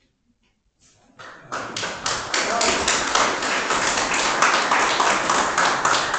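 Applause: many hands clapping, starting about a second in and quickly growing to a steady, loud patter.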